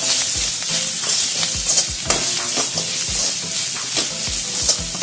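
Spatula scraping and knocking against a kadhai as an onion, gram flour and spice mixture is stirred, over a steady sizzle of frying in oil. The repeated strokes come every fraction of a second; the gram flour is being roasted so it does not stay raw.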